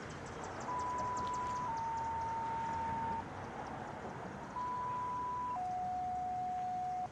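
Fire-department two-tone sequential pager alert: a steady tone of about a second steps down to a slightly lower tone held about a second and a half. After a short gap a second pair follows, its second tone stepping down further.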